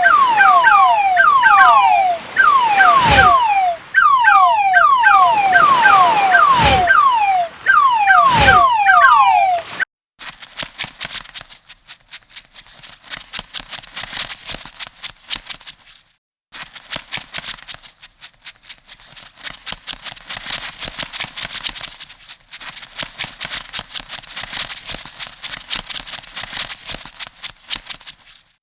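For about the first ten seconds, quick runs of short chirps that slide down in pitch, broken by a few sharp clicks. The sound then changes to a dense, irregular crackling clatter of small clicks, a crab sound effect, which stops briefly once in the middle.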